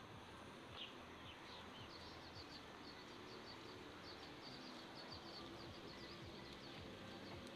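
A bird's quick, high chirps repeat in a rapid run from about two seconds in, over a faint steady outdoor hiss.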